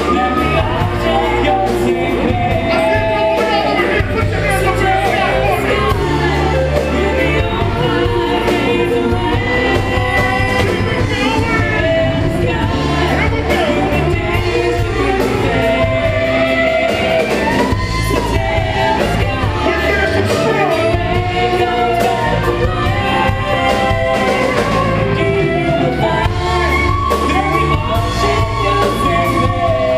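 Live band playing a song with singers out front, electric guitar, keyboard and drums, heard from the audience floor of a club. The singers hold long notes over a steady, loud band with a heavy low end.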